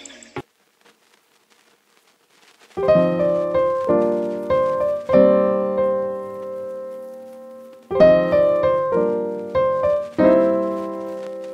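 Background piano music. After about two seconds of near silence, piano chords and notes come in, each struck and fading, and a new phrase starts about eight seconds in.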